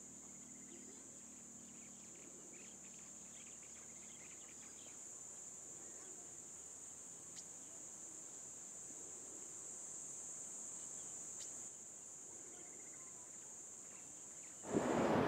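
Steady, high-pitched buzzing of an insect chorus in dry bush, holding one unbroken tone. Louder music cuts in near the end.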